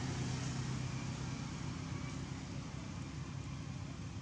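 A motor vehicle's engine running with a steady low hum, slowly fading.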